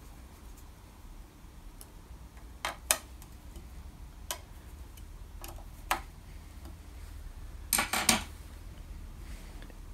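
Scattered sharp metallic clicks of a T-handle hex key working the socket-head bolts on a steel drill-press table carriage as they are loosened, with a louder rattle of several clinks near the end.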